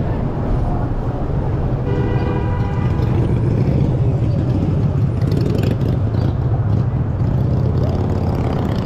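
City street traffic: a steady low rumble of passing cars and trucks, with a vehicle horn sounding once for about a second around two seconds in.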